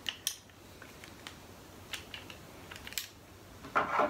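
A few small metallic clicks and taps of a Rast & Gasser revolver being handled as its cylinder is fitted back into the frame, with a louder clatter near the end.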